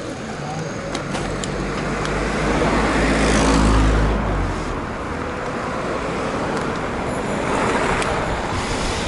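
Road traffic: a motor vehicle passes close by, its engine rumble swelling to a peak about three to four seconds in and then fading. A second vehicle passes near the end.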